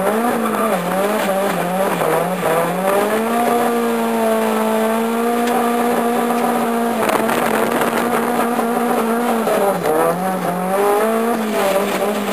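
Nissan Silvia S14's engine heard from inside the cabin while drifting: the revs rise and fall quickly at first, are held high and steady through a long slide from about three seconds in, dip at about ten seconds, then rise and fall again, with tyres squealing.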